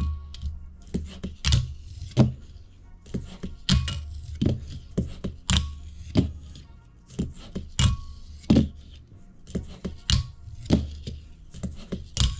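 Wooden Peak fingerboard being ridden with the fingers: sharp, irregular clacks of the deck popping and landing on a tabletop mat and its trucks hitting and grinding a small metal rail. Music plays underneath.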